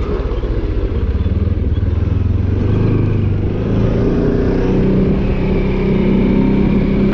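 ATV engine running under way, its pitch stepping up about three seconds in as it revs higher.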